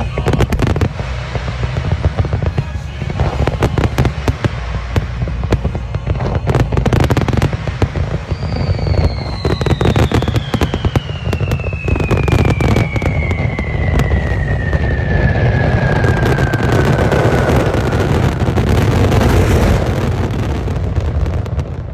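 Wide starmine fireworks firing: a dense, continuous barrage of shell bursts and crackle over a deep rumble. A long whistle falls slowly in pitch through the middle.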